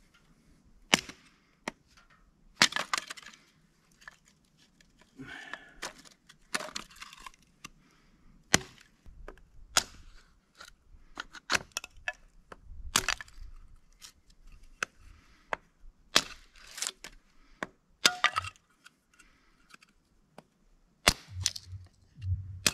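Hatchet splitting small pieces of firewood into kindling: a string of sharp, irregularly spaced cracks and knocks as the blade strikes and splits the wood. Near the end come a few low whoomps from the lake.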